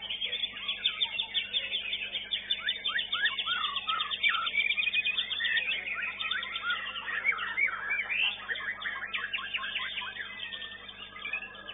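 Caged songbird singing loudly in a contest: a fast run of rapidly repeated short notes over the first few seconds, then a varied stream of whistled, swooping phrases.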